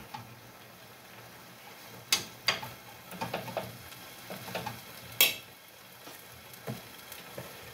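Chopped leafy greens frying in a pan, stirred with a spoon that clicks and knocks against the pan a few times, loudest about two seconds and five seconds in, over a faint steady sizzle.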